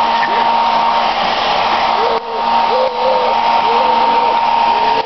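Handheld hair dryer running, a steady loud blowing with a constant whine; it dips briefly about two seconds in.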